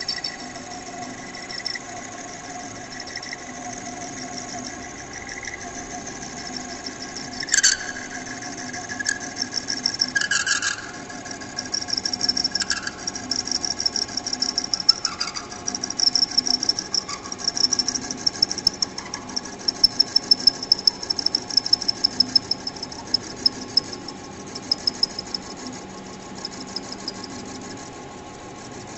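Metal lathe running with a steady machine hum while a single-point tool turns a steel bar. A high-pitched cutting whine comes and goes, with short bursts early on and a fast run of sharp ticks through the middle.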